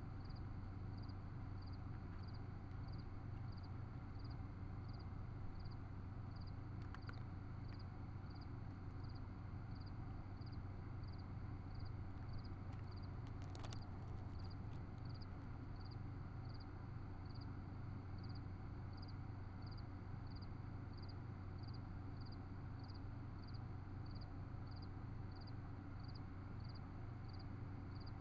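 Steady low electrical hum and hiss from a trail camera's microphone, with a faint high chirp repeating about once a second. A brief rub and clicks against the camera about 13 to 14 seconds in, as a cat brushes past the lens.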